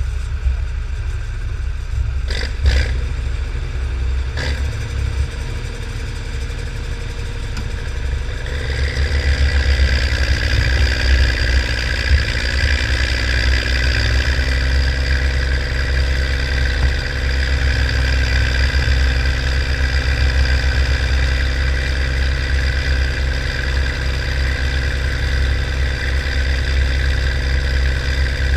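Minneapolis-Moline GVI tractor's engine running close up, with a few sharp clunks in the first five seconds. About eight seconds in it opens up and runs louder and harder, working under load down the pulling track.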